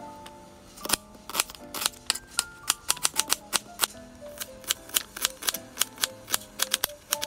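Chef's knife chopping onion on a cutting board: sharp knocks of the blade against the board, a few spaced strokes at first, then a quick, even run of about three or four chops a second. Soft background music with held notes plays underneath.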